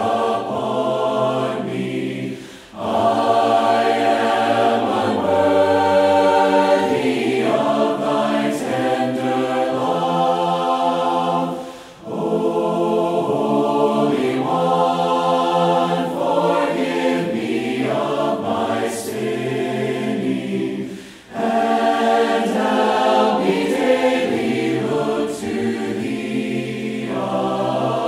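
A choir singing sacred choral music in sustained chords. The phrases break off briefly three times, about a quarter, halfway and three quarters of the way through.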